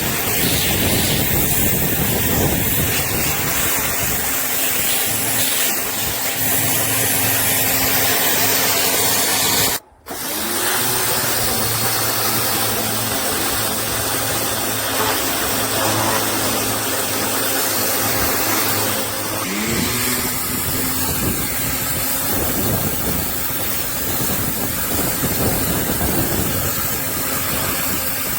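Electric pressure washer running, its motor humming under the steady hiss of the high-pressure water jet. The sound breaks off for a moment about ten seconds in, and the motor's pitch rises as it spins up just after that and again about twenty seconds in.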